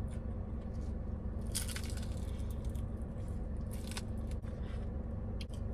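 Biting and chewing into the crispy breaded skin of a fried chicken drumstick: loud crunches about a second and a half in, again around four seconds, and briefly near the end, over a steady low hum.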